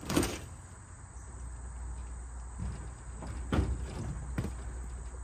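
Soft top fabric and its folding frame being swung over a truck's roll bar: a few rustling swishes and knocks, the loudest right at the start and a sharp knock near the end.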